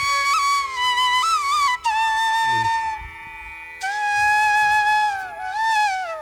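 Background music: a flute melody of held notes with sliding bends between them, over a steady drone. The melody pauses briefly about halfway through, then resumes.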